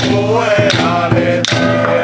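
Taoist ritual music: a chanted melodic line over steady held low tones, with percussion struck on an even beat about every three-quarters of a second.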